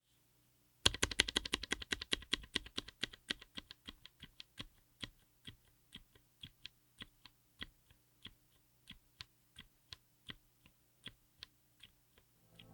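Typing on a DZ60 mechanical keyboard fitted with Redragon A120 Stars silent tactile switches, whose muted keystrokes are dampened. It starts about a second in with a quick, dense run of keystrokes, then slows to single presses about two or three a second.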